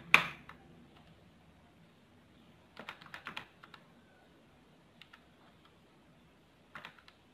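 A Casio fx-570VN Plus scientific calculator is set down on the desk with one sharp knock. Its plastic keys are then pressed in quick clusters of clicks: a burst about three seconds in, a couple of presses around five seconds, and another burst near the end.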